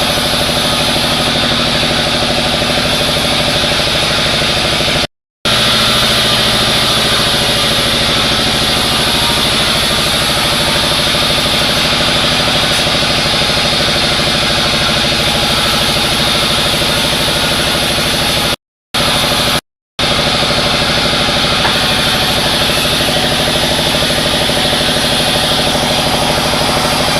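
Sawmill machinery running steadily: an engine-driven wood saw with an even hum and a loud hiss. The sound cuts out briefly three times.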